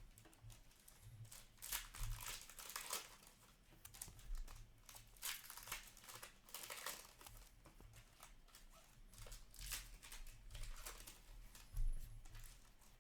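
Hockey card pack wrappers crinkling and tearing as packs are opened and cards handled, in irregular bursts of rustling. One brief louder knock near the end.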